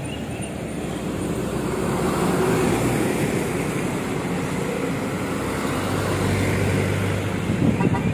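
Road traffic passing close by: a car drives past, swelling and fading, then a steady low engine hum from an approaching truck and minibus builds toward the end.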